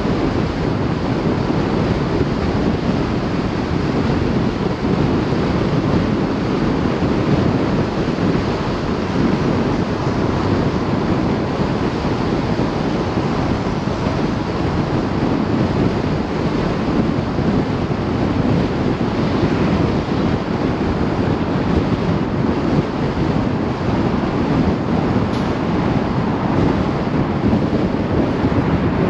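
Wind buffeting the microphone over the steady tyre and road noise of a vehicle driving at speed.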